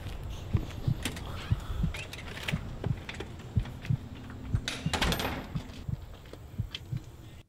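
A steady low thump about twice a second, with a front storm door being opened, rattling and scraping, about five seconds in. The sound cuts off suddenly at the end.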